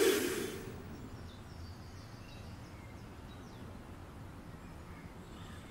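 Quiet outdoor street ambience: a steady low background noise with a few faint bird chirps. A ringing musical sound effect fades out in the first second.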